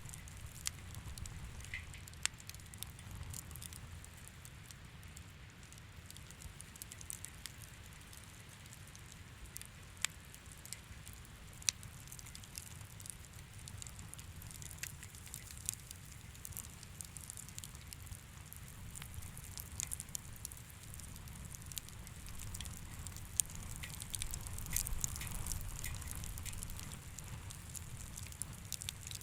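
Bonfire crackling: irregular sharp snaps and pops, a few of them louder, over a low steady rumble.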